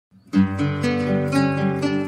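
Background music begins about a third of a second in: a gentle melody of plucked string notes over sustained low notes.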